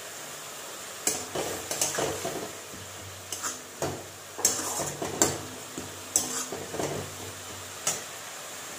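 Long metal spatula scraping and knocking against a metal kadai in about a dozen irregular strokes, stirring onion paste and red chilli powder as they fry in oil to cook the masala down.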